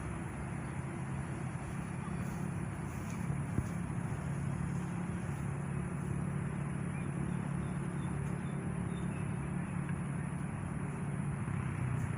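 Steady low hum of distant road traffic, unbroken and without any single passing vehicle standing out.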